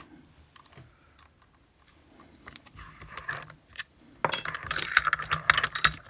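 Small metal lock parts and tools clinking and rattling while a lock cylinder is handled: a few scattered clicks, then a dense flurry of clicking and rattling over the last two seconds.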